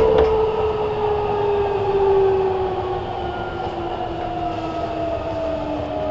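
Nagoya Municipal Subway N3000 series train running, heard from inside the car: the motor whine falls steadily in pitch as the train slows, over a steady running rumble, with a couple of clicks about the start.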